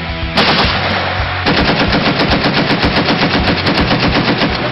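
12.7 mm Browning M2 heavy machine gun on its tripod firing a long continuous burst, starting under half a second in, at a fast, steady rate of about ten shots a second.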